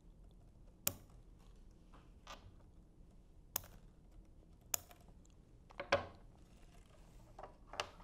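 Scissors cutting off the excess copper conductors of an Ethernet cable where they stick through a connector's insulation-displacement contact insert: a few short, sharp snips at irregular intervals.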